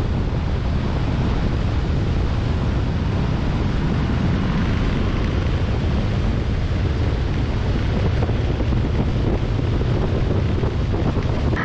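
Wind noise on a motorcycle-mounted camera microphone at highway speed: a steady, loud rush with no clear engine note standing out.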